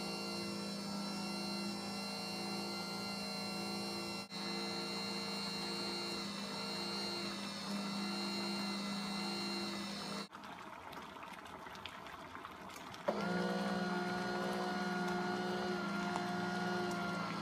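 Philips Pasta Maker's motor running steadily as it kneads flour and water into pasta dough, a hum with a regular pulse about once a second. It drops away for about three seconds past the middle, then starts up again.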